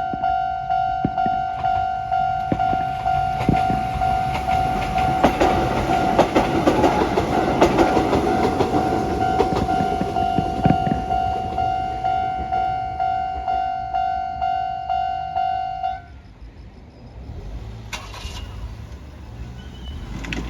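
Japanese level-crossing alarm ringing in a steady pulsing tone about twice a second as a Konan Railway train passes, its wheels clacking over the rail joints from about four to eleven seconds in. The alarm stops about sixteen seconds in, leaving a low rumble.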